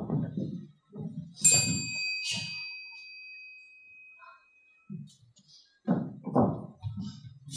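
A small bell is struck twice, about a second apart, and its high, clear ring fades away over a couple of seconds. Low muffled sounds of movement come before and after it.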